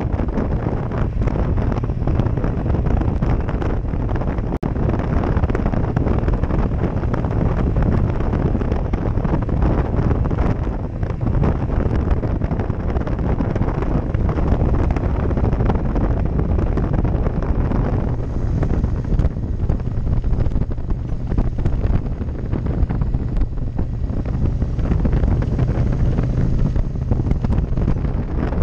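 Heavy wind noise buffeting a helmet-mounted GoPro Session microphone on a moving motorcycle. The bike's engine runs faintly underneath.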